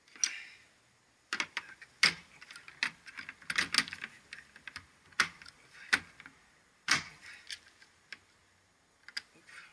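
Steel ratchet handles and sockets being handled in a plastic socket-set case: an irregular run of sharp clacks and clicks as the tools knock together and are set into the tray, with a quieter spell near the end.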